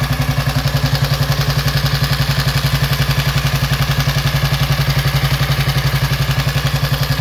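The single-cylinder overhead-cam engine of a 1937 Benelli 500 Sport idling steadily with an even, rapid beat, just after starting instantly from long storage.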